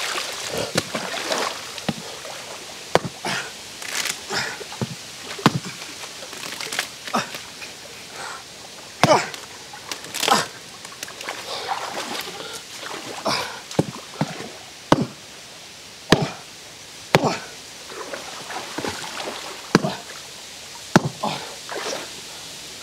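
Short-handled hatchet chopping into a waterlogged palm log: irregular sharp chops and knocks every second or so, with water sloshing and splashing around wading legs.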